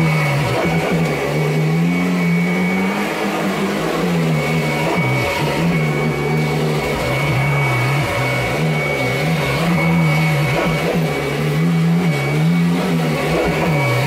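Kirby G10 Sentria upright vacuum running on carpet: a strong low hum whose pitch rises and falls every couple of seconds as the machine is pushed back and forth, over a steady high whine. The owner says its belt needs replacing.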